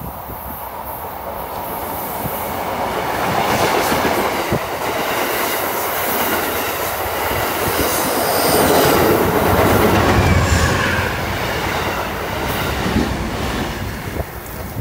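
Amtrak Downeaster passenger train rolling along the track close by, its wheel and rail noise growing louder over the first few seconds, staying loud through the middle and easing off near the end.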